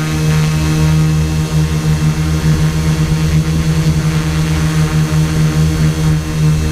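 Quadcopter's electric motors and propellers giving a steady buzz while the craft hovers in loiter, heard close up from the onboard camera.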